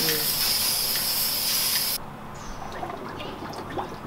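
Aerosol spray-paint can spraying a steady hiss onto the water in a hydro-dipping tray, cutting off sharply about two seconds in. After that, faint water sloshing and dripping as a scooter part is dipped into the tray.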